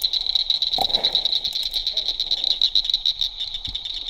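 Night chorus of calling frogs: a steady, fast-pulsing high trill.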